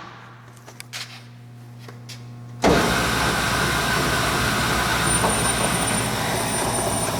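A few light clicks, then about two and a half seconds in the Doall 2013-10 vertical bandsaw is switched on and comes up suddenly to a steady running sound of motor, wheels and blade, in its slow speed range.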